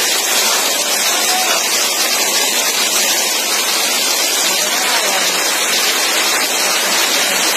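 Steady, loud rushing noise of a heavy rainstorm, with faint voices calling through it now and then.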